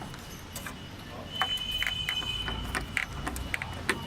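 Scattered light clicks and taps of hand work with screws and small metal parts, as the licence plate light is screwed back on. A thin, high steady whine sounds for about a second, starting just over a second in.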